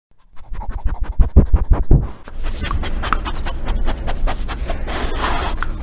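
Dogs running and splashing through shallow water: a quick run of heavy thumps for about the first two seconds, then steady splashing.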